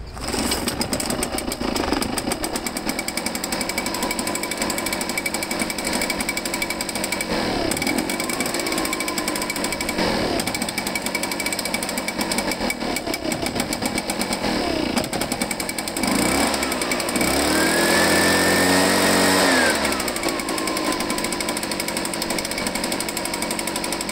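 Echo PB-500H leaf blower's two-stroke engine catching right after a pull and running at idle. Two small rises in speed come around 8 and 10 seconds in, then it revs up strongly for about four seconds before dropping back to idle; the throttle was first being turned the wrong way, so it did not rev at first.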